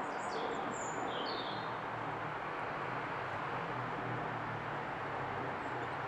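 Outdoor garden ambience: a steady background hiss with a faint low hum, and a few short, high bird chirps in the first second and a half.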